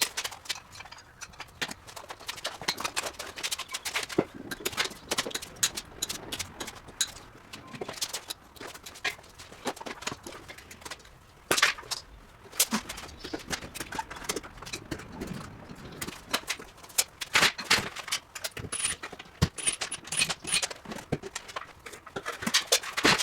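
Irregular knocks, clicks and clatter of objects being handled and moved, coming thick and fast with a few louder knocks.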